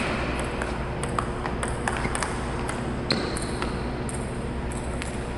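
Table tennis warm-up rally: the ball clicking sharply off the paddles and the table, roughly two hits a second, over a steady low hum.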